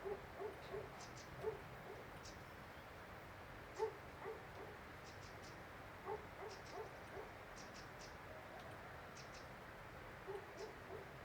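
Short animal calls in quick groups of two to four, repeating every second or two over a steady background hiss. Faint soft ticks sound among them.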